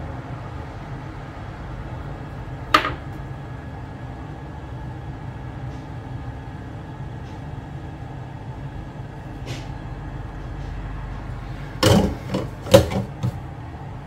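Small objects knocking on a workbench over a steady low hum: one sharp knock about three seconds in, and a quick run of four or five knocks near the end.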